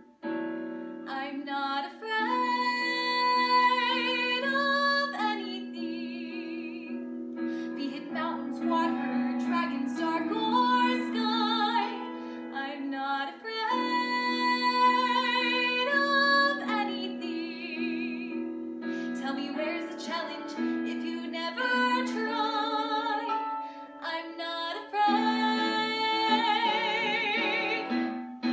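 A young woman singing a musical-theatre song solo over instrumental accompaniment, holding some notes with vibrato, especially near the end.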